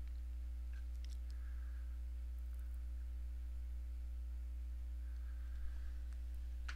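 Steady low electrical hum, with a few faint clicks and rustles of trading cards being handled.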